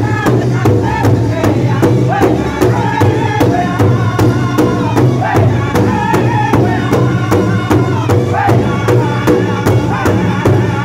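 Northern-style powwow drum group singing in loud, high-pitched chorus, men and women together, over a steady, even beat of drumsticks struck in unison on a large shared powwow drum.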